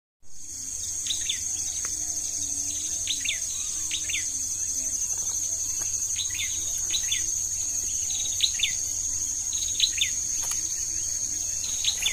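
Outdoor ambience of a steady high insect drone, with short bird chirps repeating over it every second or so.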